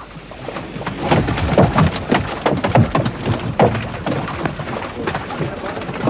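Netted salmon flapping and thrashing in water in the bottom of a flat-bottomed boat: a fast, irregular run of wet slaps, thuds and splashes.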